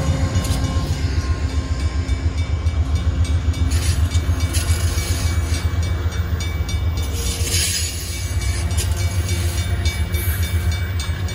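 Amtrak passenger train rolling past at close range, its locomotives then double-deck passenger cars going by. A heavy, rapidly pulsing low rumble runs under many sharp clicks from the wheels on the rails, and a faint thin high tone comes in about four seconds in.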